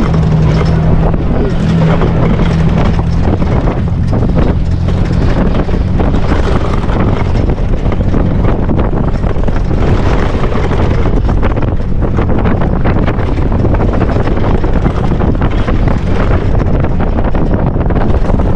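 Open-top Jeep Wrangler driving across sand, its engine running steadily under heavy wind buffeting on the roof-mounted GoPro's microphone. The engine note is clearest in the first few seconds.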